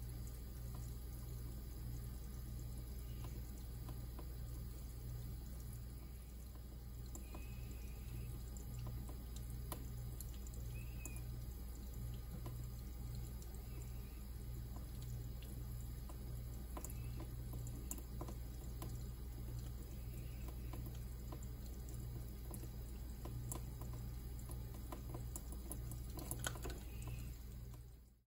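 Thin stream of tap water running steadily into a kitchen sink, faint, over a low hum; it fades out at the very end.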